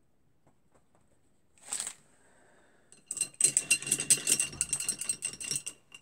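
Paintbrush rinsed in a glass jar of water, rattled quickly round the jar so that it clicks and clinks against the glass for nearly three seconds. One short swish comes a couple of seconds before.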